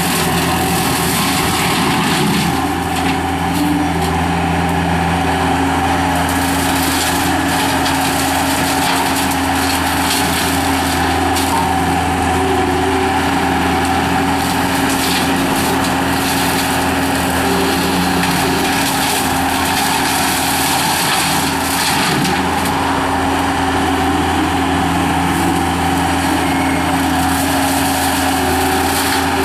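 Gehl 5640 skid steer's turbocharged engine running steadily under load while its CID Xtreme 60-inch three-blade brush cutter spins, mowing through brush and saplings, with many short sharp cracks of material being cut and thrown.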